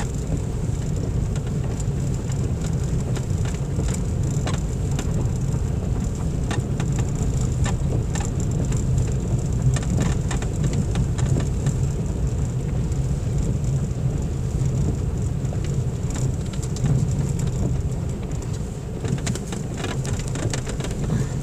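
Cabin noise of a car driving on an unpaved gravel road in wet weather: a steady low rumble of engine and tyres, with scattered small ticks throughout.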